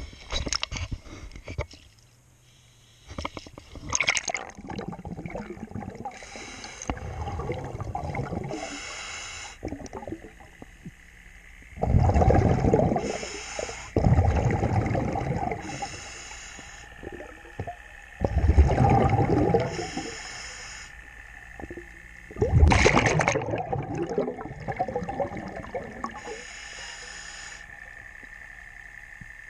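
Underwater sound heard through a submerged camera by a boat hull: muffled water sloshing and gurgling, with loud bubbly bursts four times, about 12, 14, 18 and 22 seconds in.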